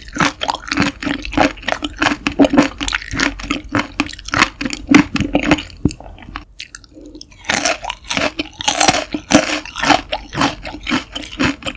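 Close-miked wet chewing of raw seafood (mackerel sashimi and raw octopus): rapid squelching and smacking mouth sounds with a short pause about two-thirds of the way through.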